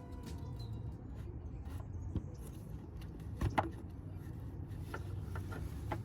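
Faint plastic clicks and scrapes of a headlight's rear dust cover being twisted off by hand, a few scattered knocks over a low steady hum.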